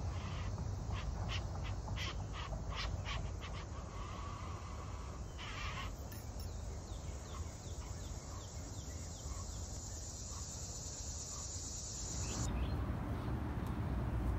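Outdoor ambience: a steady high insect drone over a low rumble, with a quick run of short bird chirps in the first few seconds and a series of short falling chirps in the middle. The insect drone stops about twelve seconds in, as the background changes to a plainer rumble.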